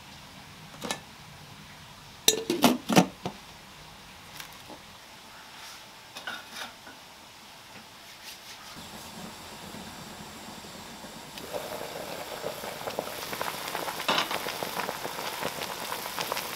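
A few clanks of metal cookware near the start, then a large stainless-steel stock pot of water coming to the boil, its bubbling swelling into a steady, vigorous boil over the second half.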